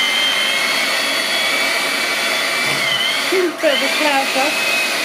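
Electric hand mixer running steadily with a high motor whine, its beaters whisking chocolate cake mixture in an earthenware bowl. The whine dips briefly about three and a half seconds in, then carries on.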